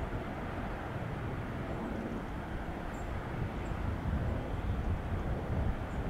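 Distant jet-engine rumble of an Airbus A380 rolling along the runway: a steady low roar that grows louder toward the end.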